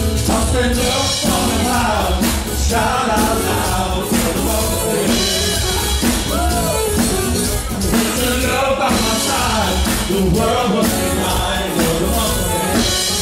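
Live band playing an upbeat dance song: a singer over bass, drum kit and congas, with a steady beat.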